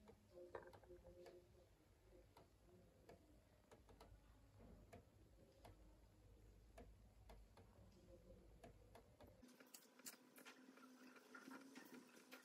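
Near silence: faint room tone with scattered soft clicks.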